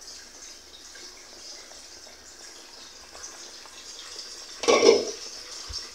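A pot of chicken pieces boiling in water, with steady bubbling; this is the boiling of the stock before the rice goes in. About five seconds in there is one brief, louder clatter.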